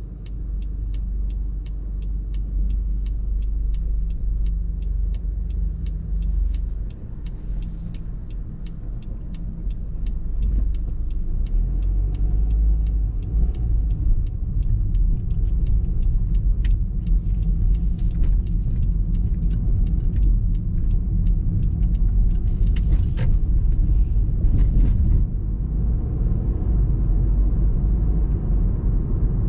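Car driving, with a steady low rumble from the engine and tyres. Over it a turn-signal indicator ticks evenly and then stops about halfway through. A couple of brief rushing noises come a little before the end.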